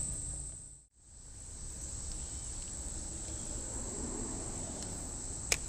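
Steady high-pitched insect chorus over a low outdoor background, with the sound dropping out briefly about a second in and a single sharp click near the end.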